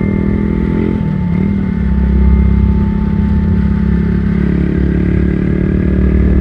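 A vehicle's engine running steadily on the move, its note dipping briefly about a second in before settling again.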